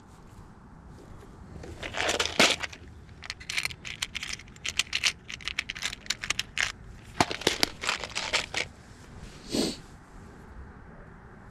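Hand tools working a wire connection as a badly worn end is replaced: runs of sharp clicks, scrapes and crinkling in three clusters, with one short rasp near the end.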